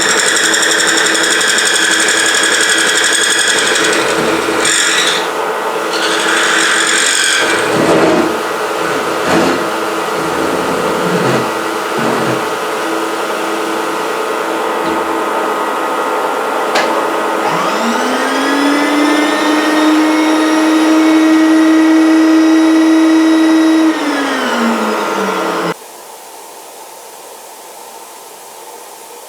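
Milling machine taking a roughing cut in a metal block with a 3/4-inch high-speed-steel end mill: a steady machine running with a ringing cutting tone and some irregular knocks. About two-thirds through, a motor whine rises in pitch, holds, then winds down, and the loud sound cuts off suddenly near the end, leaving a low hum.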